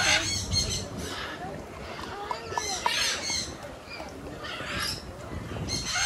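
Parrots squawking, a string of harsh calls: a cluster at the start, another around the middle and more near the end.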